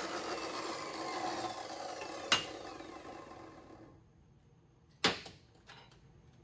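Metal-cutting saw finishing its cut through steel tubing and winding down, its running noise fading out over about four seconds, with a sharp click about two seconds in. A single sharp knock follows about five seconds in, then a few faint clicks.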